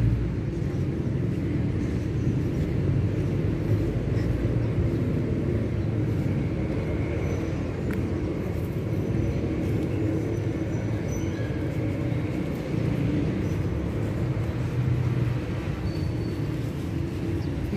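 Steady low outdoor rumble, even throughout with no distinct events.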